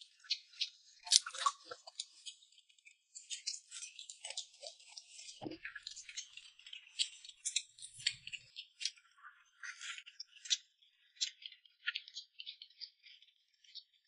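Close-miked eating sounds: people chewing and smacking on boiled dumplings, with crisp crunching bites of fresh cucumber. Many quick, irregular clicks and crackles.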